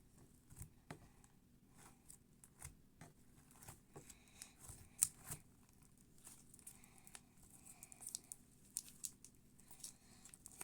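Slime being pulled, pressed and folded by hand, giving faint scattered sticky clicks and crackles, with one sharper pop about five seconds in.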